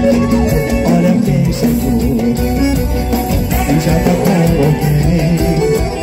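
Band music with guitar.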